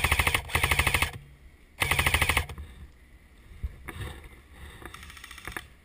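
Airsoft rifle firing three short full-auto bursts of rapid clicking, each about half a second long, in the first two and a half seconds; after that only a few faint knocks.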